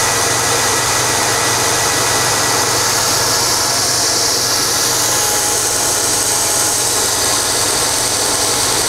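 Homemade 2x72 belt grinder running with nothing on the belt, its 1.5 hp, 3450 RPM Dayton single-phase electric motor driving the sanding belt at speed. It gives a steady hum under an even hiss.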